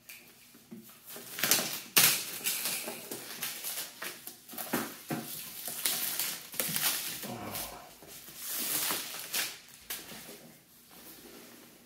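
Clear plastic shrink wrap crinkling and rustling in irregular bursts as it is torn and pulled off a cardboard laptop box, with the box being handled.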